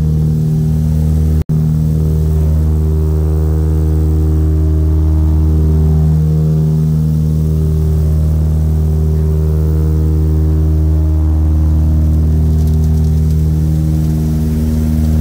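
Steady, loud drone of a turboprop's propellers and engines heard inside the passenger cabin, broken once by a split-second gap about one and a half seconds in.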